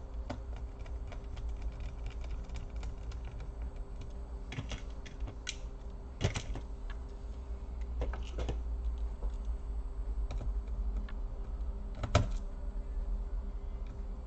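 Small scattered clicks and taps of plastic and metal laptop parts being handled and worked on, with a few sharper knocks, the loudest about six and twelve seconds in.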